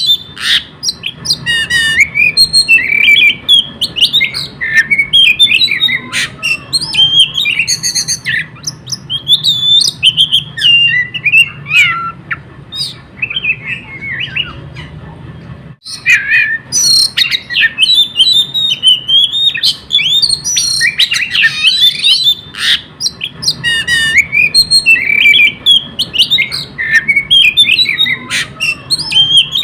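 Oriental magpie-robin singing nonstop: a fast, varied stream of whistles, chirps and harsh notes. The song is softer for a few seconds just before the middle and breaks off for an instant about halfway.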